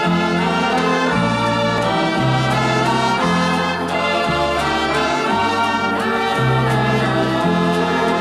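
Background music with a bass line that changes note about once a second.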